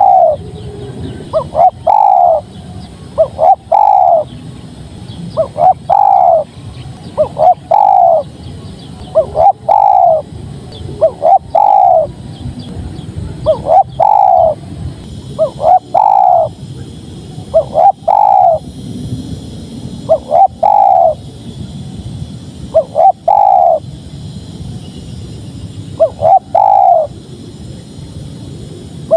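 Spotted dove (tekukur) cooing over and over. Each phrase is a couple of short notes followed by a longer falling coo, repeating about every two seconds.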